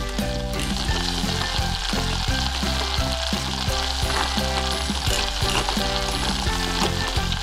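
A sizzling, frying sound, as of food cooking in a pot on a stove, beginning about half a second in, over steady background music.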